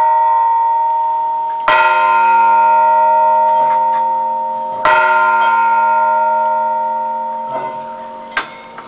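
Bronze church bell rung by hand, struck twice about three seconds apart. Each stroke rings on with a long, slowly fading tone over the one before. There are a few small metallic clinks near the end. The bells are out of tune, which the ringer admits.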